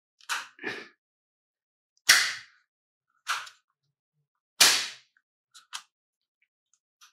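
The plastic lever that activates a car phone mount's suction cup being worked by hand: a series of sharp plastic snaps and clicks, about five, the loudest about two seconds in and just before five seconds, with a few faint ticks after.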